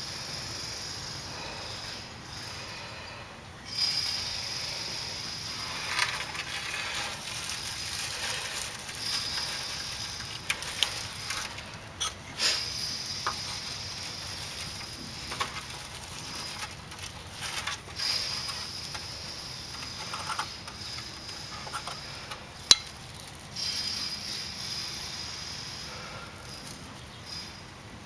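Dry pine needles rustling and crackling as hands work a tinder bundle and scrape fire-plow char and a coal from a cedar slat into it, with scattered sharp snaps. A high hiss comes and goes every few seconds.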